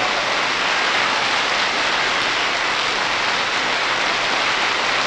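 A concert audience applauding steadily, heard on an old radio broadcast recording.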